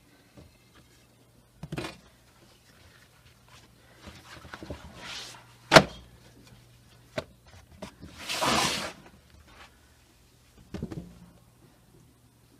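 Hands handling a thin sheet of rolled dough on a wooden board: scattered rustles and soft pats, with one sharp wooden knock about six seconds in as the long thin rolling pin is set down. A faint low steady hum runs underneath.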